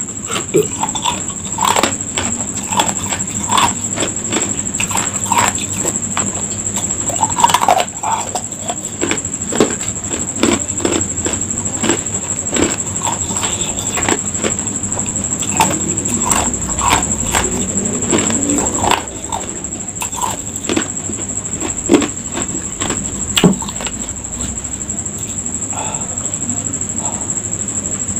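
Ice cubes being crunched and chewed close to the microphone: a long, irregular run of sharp cracks and crunches. A steady high-pitched whine sits underneath.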